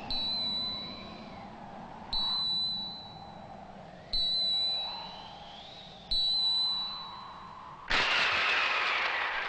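Cartoon sound effects: a high, bell-like ping sounds four times, one every two seconds, each fading away, over a soft wavering tone that glides up and down. About eight seconds in a loud whoosh breaks in as a sheet of paper blows toward the view.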